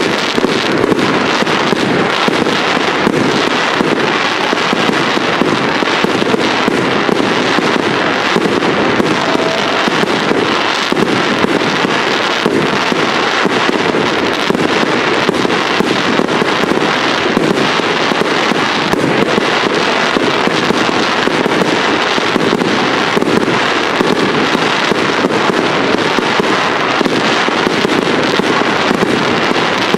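Aerial firework shells bursting in a dense, continuous barrage: many overlapping bangs and crackles with no break between them.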